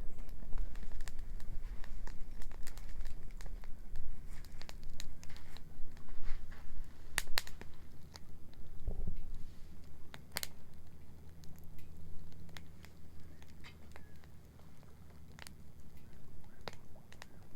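Wood bonfire crackling, with irregular sharp pops, the loudest about seven and ten seconds in, over a low steady rumble.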